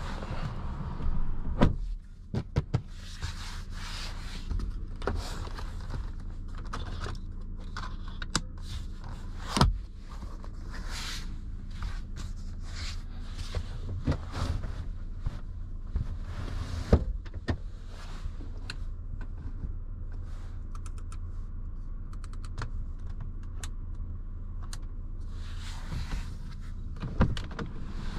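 Clicks, knocks and rustles from the rear cabin of a 2021 Audi Q5 being handled, with a steady low hum underneath. A heavy thunk comes about a second and a half in and another near the end, and a quick run of small ticks falls about two-thirds of the way through.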